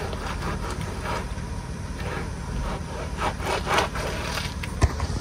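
Short bursts of rubbing and rustling from work gloves and clothing being handled, over a steady low rumble of wind on the microphone, with one sharp click near the end.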